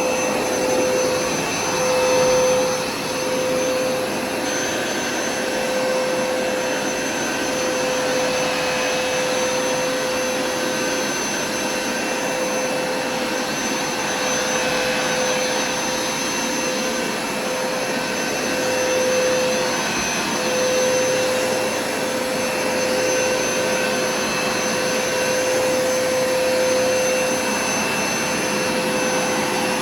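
Hoover carpet cleaner running continuously, its motor giving a steady whine over a rushing of air, the pitch wavering slightly as it is pushed over the carpet.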